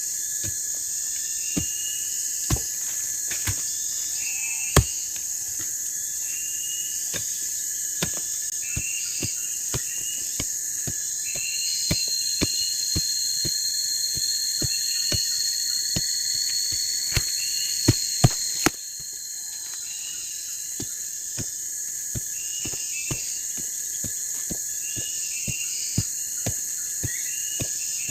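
A chorus of insects: a steady high buzzing drone with short repeated chirps beneath it. A higher steady whine joins about a third of the way in and stops suddenly about two-thirds in. Scattered sharp clicks and knocks run throughout.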